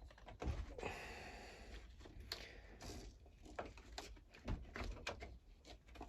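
Handling noise as a hedge trimmer's frame is slid over the front of the engine and fitted: a brief scraping rustle about a second in, then scattered light knocks and clicks.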